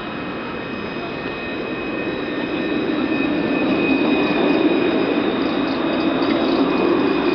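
Alstom Citadis tram on Paris line T3 passing close by: a steady rumble of wheels and running gear that grows louder about three seconds in, with thin high whining tones held above it.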